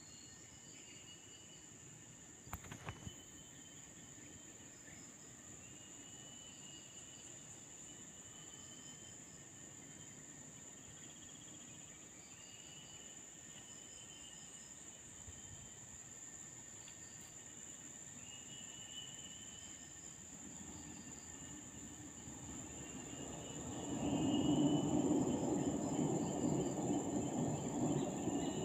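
Insects buzzing in a steady, high, even drone, with short chirps now and then and a few sharp clicks about three seconds in. About four seconds before the end a low rumble comes in abruptly and stays, louder than everything else.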